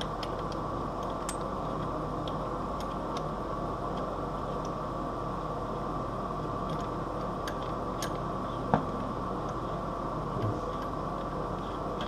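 Faint clicks and light taps of a bidet supply hose's coupling being threaded by hand onto the fitting under the toilet tank, over a steady background hum. One sharper tap about three-quarters of the way through.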